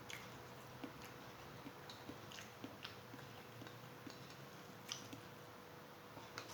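Faint chewing with scattered small mouth clicks and smacks, a person eating a meal of rice with fish.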